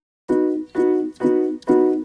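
Background music: after a brief silence, a track starts with a run of evenly repeated notes, about two a second.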